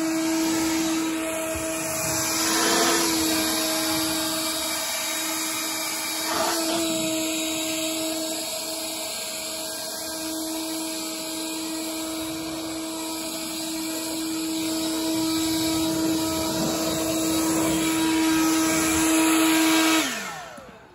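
Bauer 20V cordless electric leaf blower running steadily while blowing snow: a constant high motor whine over a rush of air. Near the end it is switched off and the whine falls away as the motor winds down.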